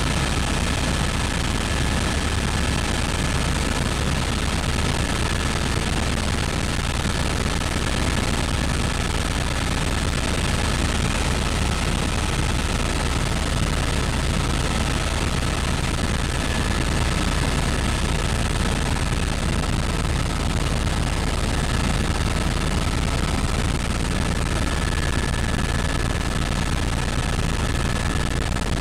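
Tour helicopter in cruise flight, heard from inside the cabin: steady, loud rotor and engine noise with a steady high whine running through it.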